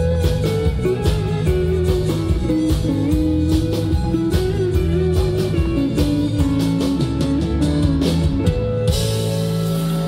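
Live country band (guitars, bass and drums) playing the instrumental outro of a song, ending on a held final chord about nine seconds in.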